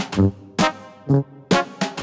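Alto saxophone playing with a bass drum and a pair of hand cymbals beating along: a loud crash and thump comes every third to half second, with sax notes between the hits.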